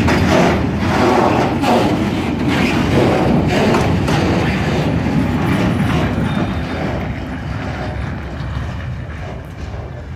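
Tarpaulin-covered freight wagons rolling past at low speed, wheels rumbling and clacking over the rail joints. About halfway through the last wagon goes by and the sound fades as the train moves away.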